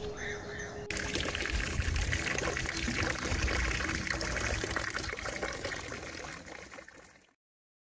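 Water running from a stone fountain's spout and splashing into its trough, a steady trickle that starts about a second in and fades out near the end.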